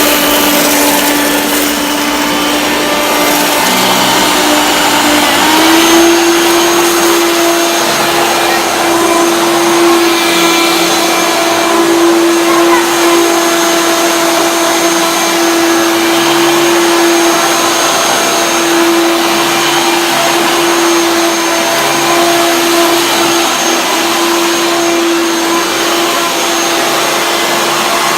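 Hoover Turbopower 1 Freedom vacuum cleaner running steadily, its motor whine stepping up slightly in pitch about five seconds in.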